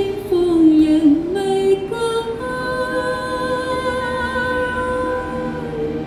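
A woman singing a Chinese pop ballad into a handheld microphone: a few short notes with a downward slide, then one long held note of about three seconds with slight vibrato.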